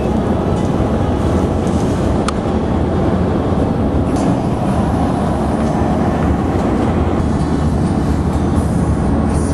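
Steady, loud rumble of a moving vehicle, with no speech.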